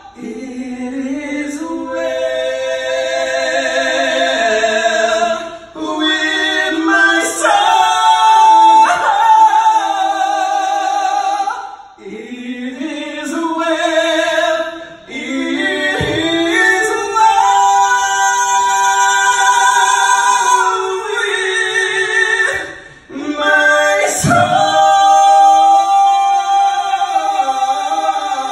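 Two men singing a duet in harmony through microphones, in phrases with long held notes.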